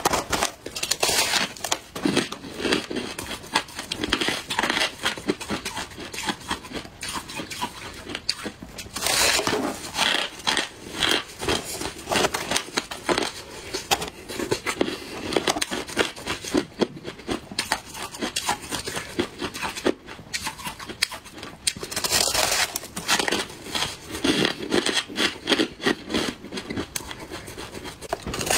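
Crushed-ice clumps crunching and crackling as they are broken apart by hand and chewed, a dense run of crisp crackles. There are louder stretches of crunching about a third of the way in and again about three quarters through.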